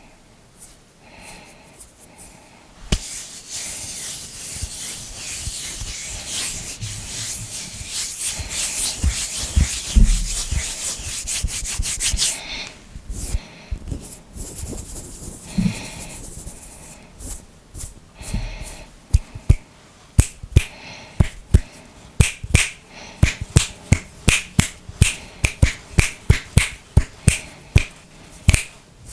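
Hands rubbing together close to the microphone, a dense dry hiss for several seconds. In the second half it changes to a run of sharp finger clicks, about two or three a second.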